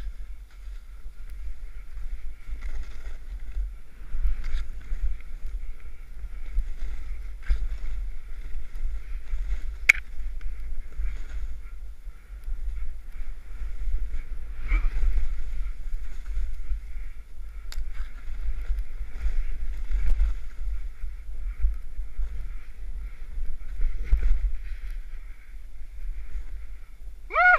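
Snowboard riding through powder snow: the board hisses steadily over the snow while wind rumbles on the action-camera microphone, with a few sharp clicks along the way and a short rising call at the very end.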